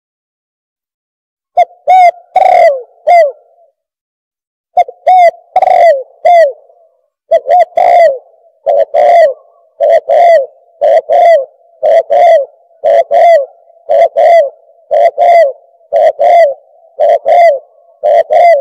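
Spotted dove (bato-bato) cooing: short, falling coos that begin about a second and a half in, break off once briefly, then go on as a steady run of paired coos about once a second.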